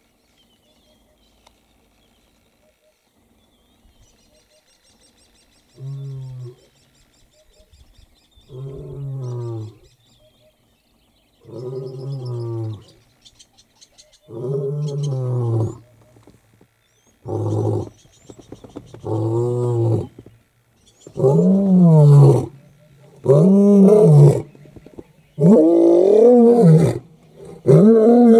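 Male African lion starting a roaring bout. After a few quiet seconds, deep moaning calls begin about six seconds in, repeating every two to three seconds and growing steadily louder and closer together, each call swelling up and falling away.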